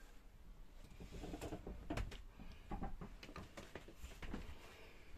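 Faint footsteps and scattered small knocks, irregular, inside a boat's small cabin.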